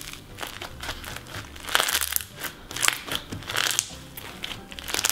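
Purple slime with foam beads being squeezed and kneaded by hand, giving a rapid, irregular run of small crackles and pops as the beads are crushed.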